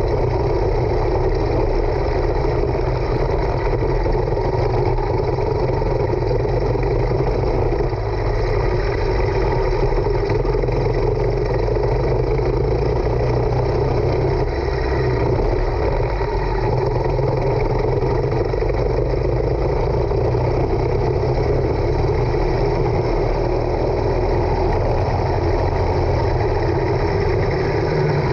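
Onboard sound of a racing go-kart: its small engine running hard at speed, mixed with wind rushing over the camera microphone, steady throughout.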